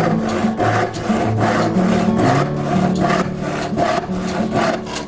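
Handsaw cutting through a wooden board held in a vise, with steady back-and-forth strokes at about two to three a second.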